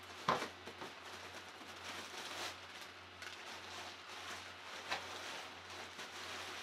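Rustling of a folded nylon inflatable and its cardboard packaging being handled and pulled out of the box, with a sharp knock shortly after the start and a smaller one about five seconds in.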